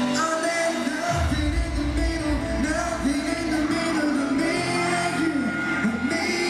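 Live pop concert: male vocals singing a melody with the band, a deep bass coming in about a second in, heard from the audience in a large arena hall.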